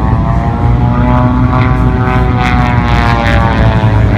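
Propeller-driven airplane flying past, its engine and propeller drone loud and steady, the pitch shifting slowly as it passes.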